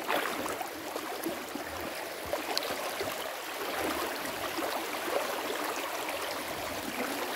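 Shallow creek water running steadily over a rocky bed, a continuous babbling rush with a few faint ticks.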